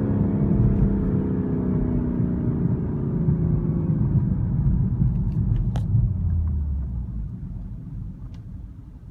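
BMW 340i xDrive engine, a turbocharged inline-six, with its Active Sound Design coded to the M3/M4 sound, falling in pitch as the revs drop. It settles into a low rumble that fades away near the end, with a sharp click about six seconds in.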